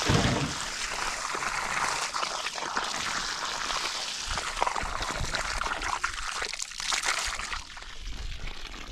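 Water pouring and trickling steadily, with a brief low thump at the start.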